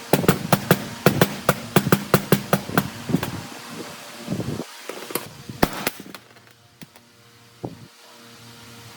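A quick run of sharp knocks, about four a second for some three seconds, over a low steady hum. After that come a few scattered single knocks.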